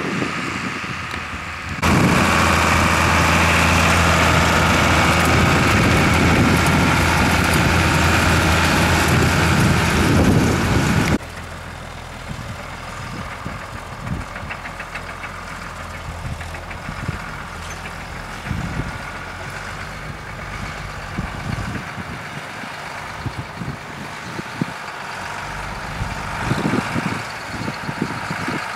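Case IH 1455 XL tractor's six-cylinder diesel engine running under load while pulling a seed drill. It is loud and close from about two seconds in until it cuts off abruptly about eleven seconds in. It then continues fainter and distant, growing louder again near the end.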